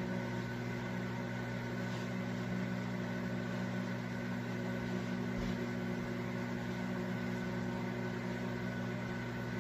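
Countertop microwave oven running: a steady electrical hum with fan noise that does not change.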